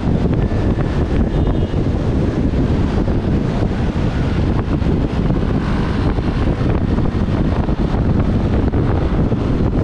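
Steady wind rush on the microphone of an Aprilia SR150 scooter riding along at speed, with the scooter's engine and road noise mixed in underneath.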